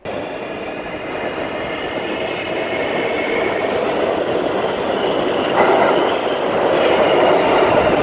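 Subway train pulling into an underground station, wheels rumbling and squealing on the rails, growing steadily louder as it comes alongside the platform.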